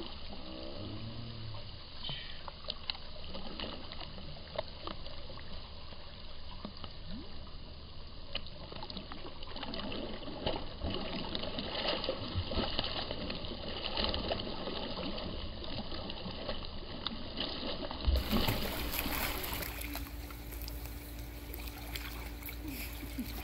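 Water splashing and lapping in a swimming pool as a small child kicks and paddles, with many small irregular splashes. Near the end there is a sharp knock, then a steady low hum under the water sounds.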